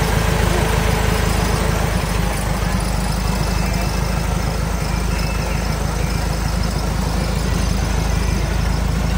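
A fire truck's engine idling steadily, a low even rumble.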